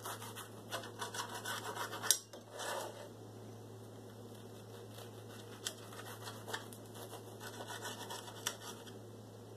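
Table knife sawing through the toasted bread of a grilled cheese sandwich on a plate: a run of faint, crisp scratching strokes, with a few sharp clicks along the way.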